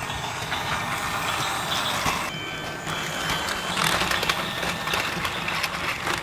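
Battery-powered toy Thomas train and motorized toy car running on plastic track: a steady whirring, rattling motor noise that gets louder about four seconds in as the car crosses the level crossing.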